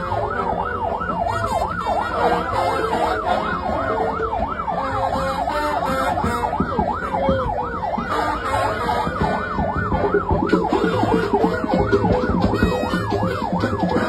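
Electronic vehicle siren in a fast yelp, its pitch sweeping up and down about three times a second, over a low rumble.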